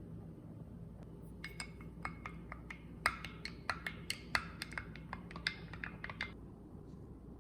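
A quick, irregular run of light clicks and clinks of hard objects being handled, some with a brief glassy ring, over a low steady hum; they stop about a second before the end.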